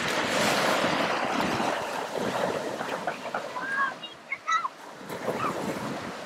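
Small waves breaking and washing up a pebble beach, loudest in the first half. A few short high-pitched cries come about four to five seconds in.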